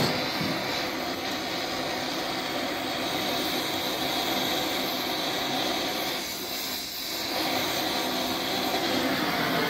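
Gas torch flame burning with a steady hissing rush while it heats the tractor's steel generator bracket so it can be bent back into belt alignment. It dips briefly about two-thirds of the way through.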